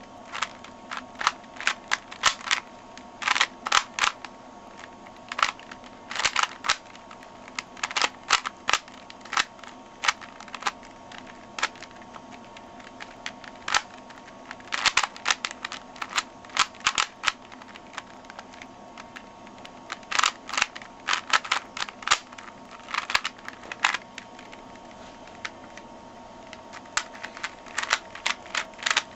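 Rubik's cube being turned quickly by hand: quick runs of sharp plastic clicks and snaps as the layers are twisted, broken by pauses of a second or more while the solver looks for the next moves.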